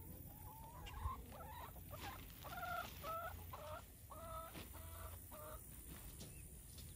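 Chickens clucking: a drawn-out rising call, then a string of short, evenly repeated clucks over a few seconds.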